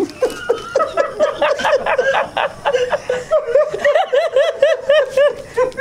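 Men laughing hard, a quick unbroken run of 'ha's, about five a second.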